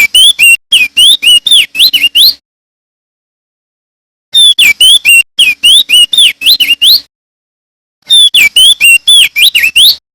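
Male crested dark-eye (opior jambul) singing. There are three identical song phrases, each about two and a half seconds of rapid, loud whistled notes sliding down and up, with a gap of about two seconds between phrases.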